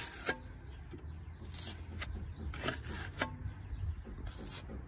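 Metal putty knife scraping excess wood filler off a wooden porch railing: several short scrapes and knocks of the blade against the wood.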